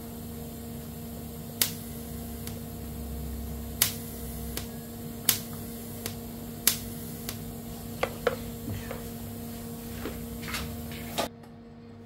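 Tack welding a steel motorcycle exhaust header: a dozen or so short, sharp snaps, irregularly spaced a second or so apart, as the tacks are struck, over a steady hum that stops abruptly near the end.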